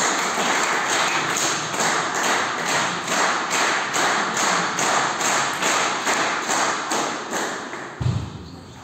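Spectators clapping together in a steady rhythm, about two to three claps a second, fading away near the end. A single dull thud follows just before the end.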